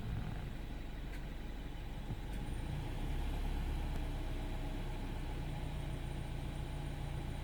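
BMW F20 116i's N13 1.6-litre turbocharged four-cylinder engine running steadily, with a thin high whistle that sets in about two and a half seconds in and holds steady.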